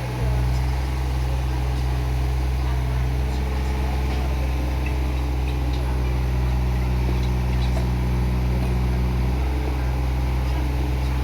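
Excavator's diesel engine running steadily with a low, even drone; one of its tones drops out about nine seconds in.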